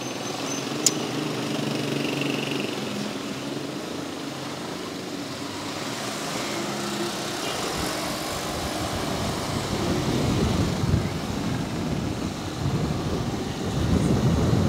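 Motorcycle engine running at low road speed, with one sharp click about a second in. The engine gets louder and rougher in the second half as the bike gets under way, with a rumble of wind on the microphone.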